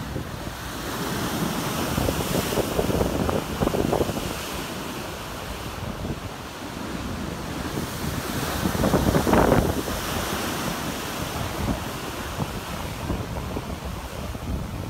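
Heavy ocean surf breaking and washing through foam, with wind buffeting the microphone. The surf swells twice, the louder wave crashing about nine seconds in.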